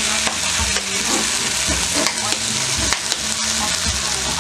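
Food frying in hot oil in a pan, a steady loud sizzle, with scattered clicks of a utensil stirring against the pan.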